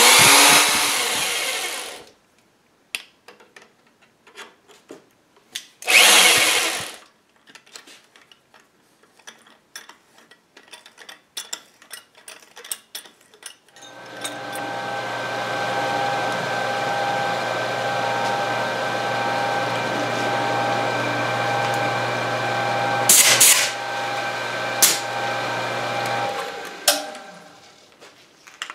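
Workshop sounds at a drill press while a steel bracket is drilled and countersunk. There are two short loud noisy bursts, then scattered clinks and knocks of metal being handled. About fourteen seconds in, the drill press motor starts and runs steadily for about twelve seconds, with a few sharp hits near its end.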